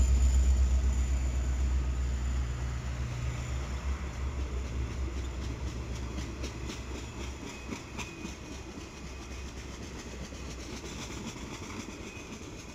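A CN diesel freight locomotive passes close by, its low engine rumble fading over the first few seconds as it draws away. Freight cars, boxcars and then tank cars, follow, their wheels rumbling and clicking over the rail joints.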